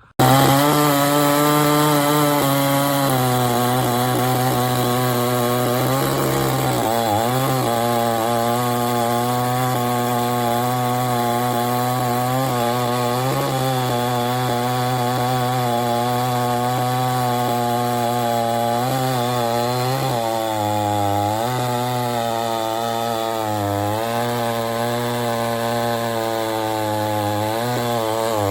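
Two-stroke gas chainsaw running at high speed, cutting in abruptly. Its engine note dips and picks back up several times.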